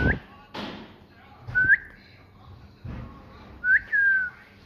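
Three clear whistled notes, each held level briefly and then flicking sharply up in pitch; the last one rises and then glides down in a long fall.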